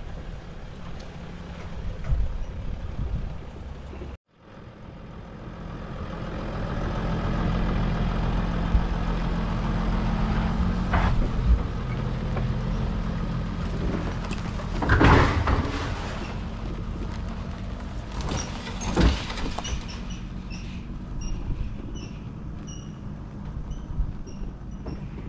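Mercedes Sprinter van's 3.0 L V6 diesel engine running steadily under load as it tows a loaded trailer up a dirt trail. The sound drops out briefly about four seconds in, and there are two louder rushes of noise a few seconds apart past the middle.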